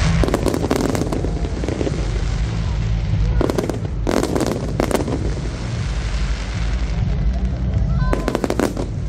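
Aerial fireworks bursting overhead: clusters of sharp crackling bangs about a second in, again around three to five seconds in, and once more near the end, over a steady low rumble.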